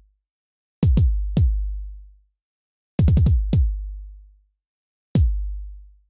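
Synthesized 808-style kick drum from FabFilter Volcano 3, a low thump that drops in pitch, topped by a noise click from a band-pass filter. It is played in three short groups of hits: three, then about five, then one. The click filter's cutoff is being moved between about 5 and 6.5 kHz, changing how bright the click sounds.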